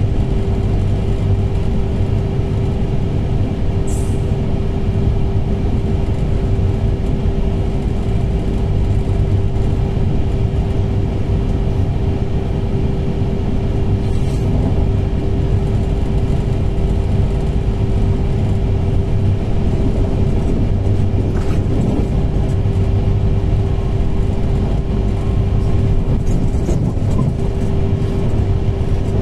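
Inside a TER passenger train running along the line: a steady rumble of the wheels on the rails with a steady hum over it, and a few short faint clicks.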